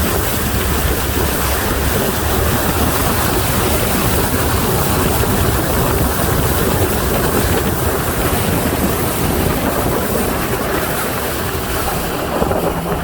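Speedboat running at speed, its motor under a steady loud rush of wind and water.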